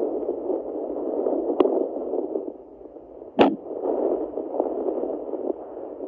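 Pocket fetal Doppler's loudspeaker giving a steady whooshing static as the probe searches a pregnant Yorkshire terrier's belly for the puppies' heartbeats, with two sharp crackles, a little after a second and a half and at about three and a half seconds in. A fetal heart rate of about 132 beats a minute is picked up at the start and lost by the end.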